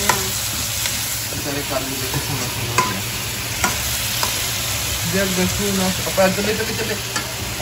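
Onions and tomatoes sizzling in oil in a steel kadhai as a metal spoon stirs them, with several sharp clicks of the spoon against the pan.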